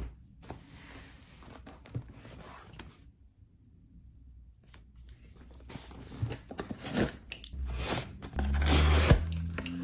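Cardboard shipping box being handled on a desk: faint rubbing and scraping, building to louder scraping and crunching of cardboard and packing tape near the end as it is cut open with a box cutter.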